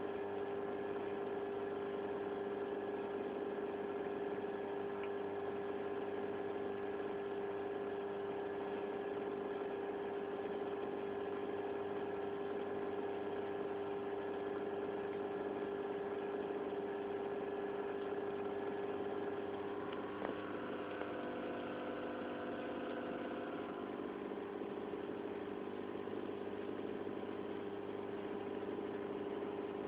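Aquarium pump running with a steady mechanical hum on one strong pitch. There is a small click about twenty seconds in, after which the hum's overtones shift slightly.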